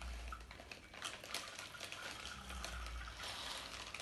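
Dry popcorn kernels poured from a plastic packet into a glass of water: a run of small splashes and light clicks as the kernels drop in.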